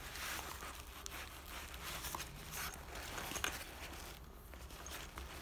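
Hands rummaging in an open zippered camera bag with padded nylon lining: irregular fabric rustling and scraping with small clicks, one sharper tick about three and a half seconds in.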